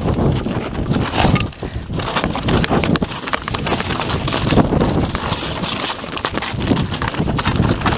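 Mountain bike rolling down a rocky trail: tyres crunching over loose stones and the bike rattling with a steady run of irregular clicks and knocks, with wind on the microphone.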